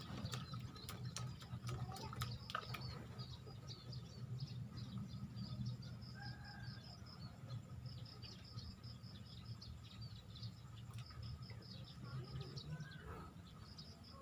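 Swamp ambience: runs of quick, repeated high-pitched chirping from small wildlife over a faint low rumble, with a few light ticks in the first few seconds.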